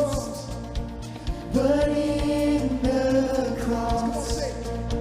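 Contemporary worship band music: sung notes held over a steady bass and drum beat.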